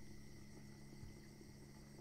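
Near silence: a faint steady hum, with the tail of a louder sound fading out over the first half second.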